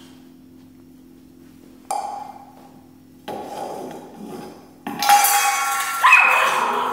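Stainless steel dog bowl pushed and knocked across a tile floor by a puppy, scraping and ringing in several bursts: the first about two seconds in, louder ones in the last two seconds.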